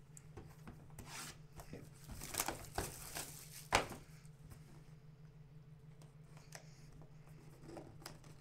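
Trading cards and shrink-wrapped card boxes being handled: packaging rustling and crinkling, with a sharp tap about four seconds in, over a steady low hum.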